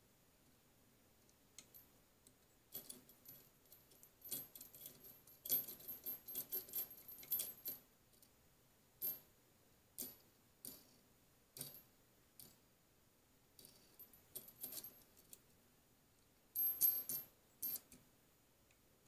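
Small metal parts clinking and clicking as nuts and washers are handled and fitted onto threaded steel rods and steel shelf brackets: a dense run of clinks a few seconds in, scattered single clicks after, and another brief cluster near the end.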